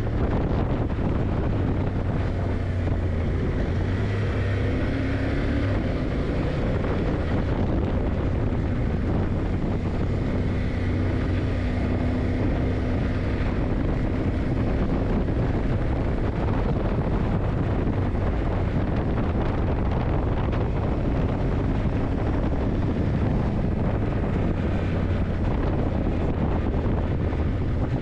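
Yamaha TDM900's parallel-twin engine running at a steady pace while riding, with wind rushing over the microphone.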